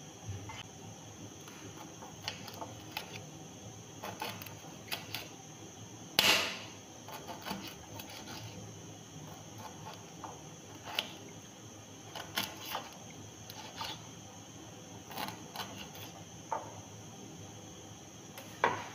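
Scattered light clicks and taps of hands handling onions and onion peel on a stone kitchen countertop, with a louder knock about six seconds in and another near the end, over a faint high steady hiss.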